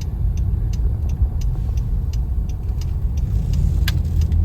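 A car driving slowly, heard from inside the cabin: a steady low rumble of engine and tyres, with faint irregular ticks about three times a second.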